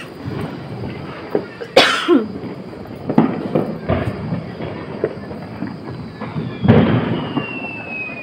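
Diwali firecrackers bursting: several sharp bangs, the loudest about two seconds in and another strong one near the end. A thin whistle falls slowly in pitch over the last two seconds.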